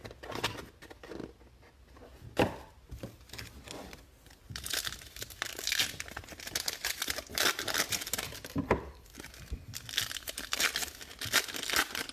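Trading card pack wrappers being torn open and crinkled by hand, in irregular bursts of rustling, with a sharp click about two and a half seconds in.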